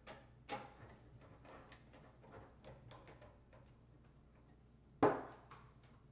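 Hand screwdriver turning small screws into the metal brackets of a car-stereo dash kit, with faint scattered clicks and scrapes. About five seconds in, a sharper knock as the screwdriver is set down on a wooden table.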